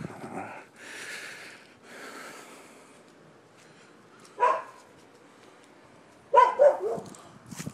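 Dog barking: a single bark about halfway through, then a quick run of several barks near the end. Rustling noise fills the first few seconds.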